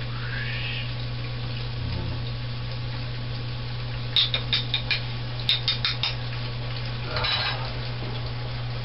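Longganisa sausage frying in a skillet with a low, steady sizzle, while a utensil clinks against a dish in two quick runs of taps, about five each, as garlic is knocked into the pan. A short scrape or burst of sizzle follows about seven seconds in.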